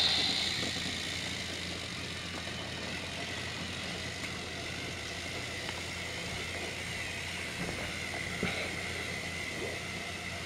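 Small battery-powered motor of a Trackmaster toy train whirring steadily, with a thin high whine and a couple of faint clicks.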